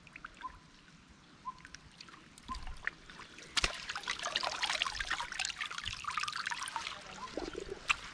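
Cast net being lifted out of shallow river water: water streams, trickles and splashes off the mesh, starting suddenly about three and a half seconds in after a stretch of small scattered drips.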